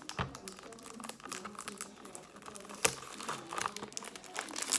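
Packaging crinkling and rustling as a cosmetics box is opened by hand, with two sharp knocks, one just after the start and one near three seconds in.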